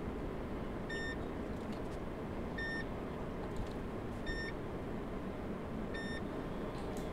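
Four short electronic beeps, one about every second and a half, over a steady background noise.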